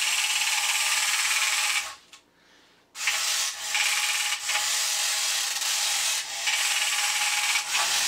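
Vintage tin battery-operated toy car (Aston Martin Secret Ejector) driving across a wood floor, its small electric motor and gear drive making a steady rasping whir. The sound stops for about a second near two seconds in, then starts again and runs on with a few brief dips.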